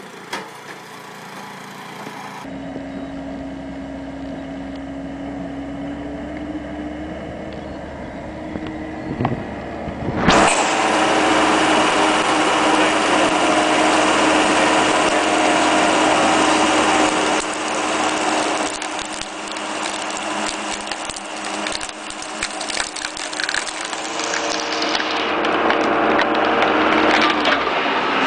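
A screw-cone log splitter: a threaded steel cone turning and boring into a log round over a steady motor hum. About ten seconds in, the sound jumps to a loud, dense crackling and splintering as the cone drives into the wood and forces it apart. The crackling eases off near the end.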